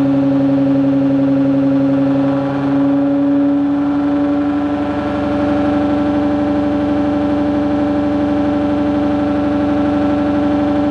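ReGen-X pulsed DC stepper motor running at raised speed with a loud, steady electrical whine made of several held tones. Its tone shifts a little about three seconds in.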